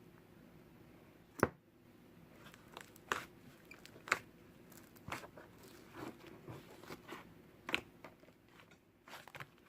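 Soft, fluffy white cloud slime being pressed and kneaded by hand, giving irregular crisp pops and crackles about once a second.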